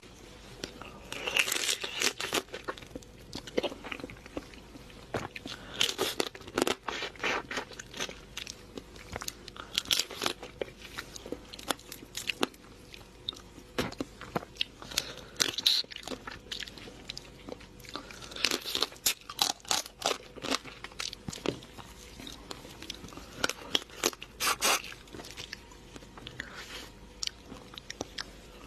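A person biting and chewing crunchy food close to the microphone, with crisp crunches coming in irregular clusters.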